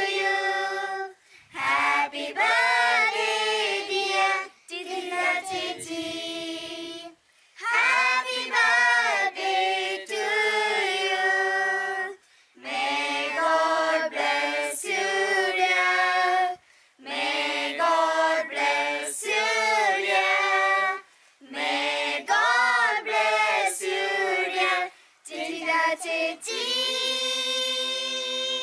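A mixed group of adults and children singing a song together without accompaniment, in phrases separated by short pauses for breath.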